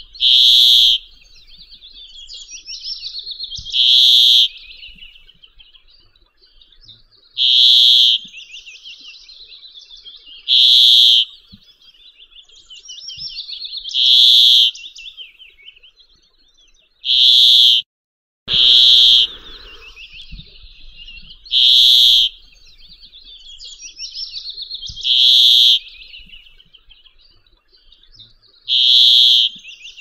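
Male brambling singing its harsh, buzzing, drawn-out note, repeated about ten times at roughly three-and-a-half-second intervals, with softer twittering in between. Just past the middle the sound briefly drops out.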